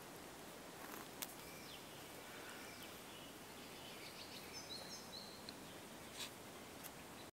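Faint outdoor ambience: a steady low hiss with a few scattered clicks, and a handful of short, high bird chirps a little past the middle.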